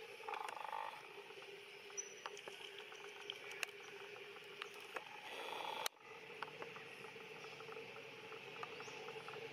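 Quiet outdoor ambience among trees: a steady insect drone with scattered faint clicks and ticks, and one sharp click about six seconds in.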